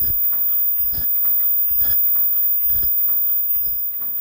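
Automatic disposable face-mask machine running at its ear-loop welding station: a regular mechanical cycle of a low thud with a sharp click on top, repeating a little faster than once a second, five times here.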